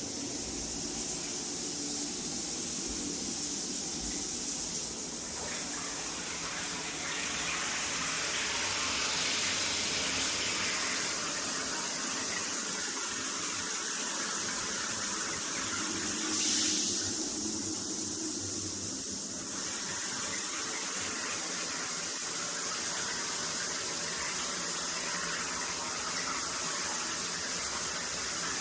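Water running through a multifunction shower system: a steady rush with a high, steady whine over it, the sound of the flow shifting several times. The owner ties this humming to the valve when the body-jet function is on.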